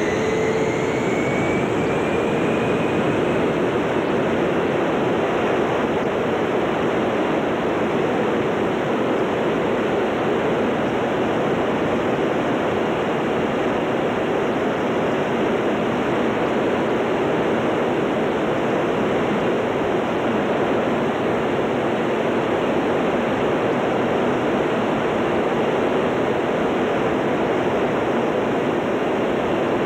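KC-135 jet engines heard from inside the cabin during takeoff and climb-out: a steady loud roar, with a rising whine that fades away in the first few seconds.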